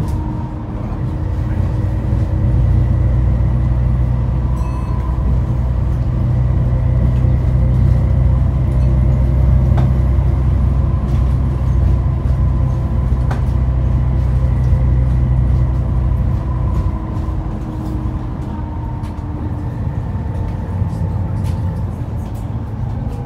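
Interior of an Alexander ALX400 double-decker bus under way: the diesel engine pulls hard with a deep drone and a steady gearbox whine, then eases off about two-thirds through as the bus slows for a stop, the whine falling in pitch. Scattered rattles and clicks from the bodywork.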